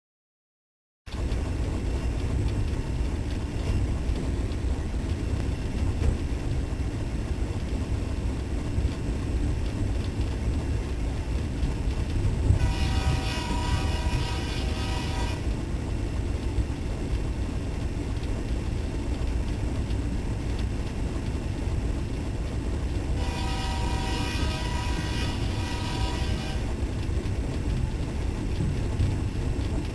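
Diesel locomotive engines running with a loud, steady low rumble. A train air horn sounds twice, each blast about three seconds long, roughly twelve and twenty-three seconds in.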